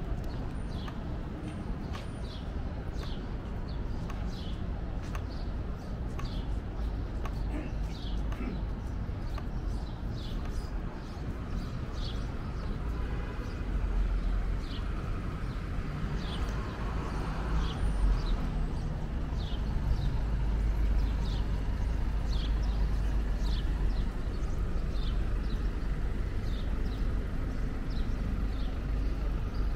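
Busy city street ambience: a steady traffic rumble with faint voices, and a short high chirp that repeats every half second or so.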